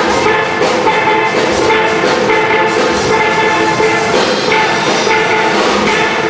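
Steel band playing live: steelpans carrying the melody and chords over drums and percussion, with a steady beat.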